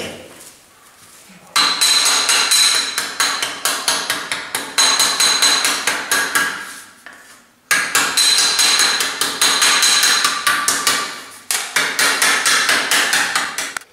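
A small hammer beating the rim of a thin sheet-metal dish against an anvil, in three runs of rapid blows about five a second, the metal ringing with each blow: the edge is being flanged over by hand.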